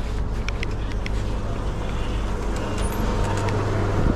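Street traffic with a motor vehicle's engine running close by, a steady low rumble that grows louder near the end.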